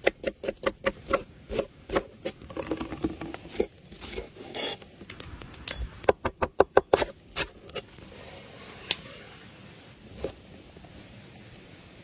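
A cleaver chopping onion on a wooden board: quick runs of sharp knocks, about four or five a second, broken by a short pause in the middle. It thins to a few single knocks over the last few seconds.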